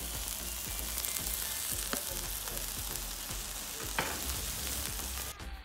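Beef steak strips sizzling on an oiled steel fire plate over a wood fire, a steady frying hiss with a couple of sharp pops. The hiss drops away suddenly near the end.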